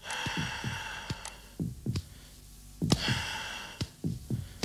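Percussion of a healthy person's chest: a series of short, low thumps from fingers tapping on the chest, each dropping in pitch, with two long breaths, one at the start and one about three seconds in. The loud note of the taps is the sign of healthy, air-filled lungs.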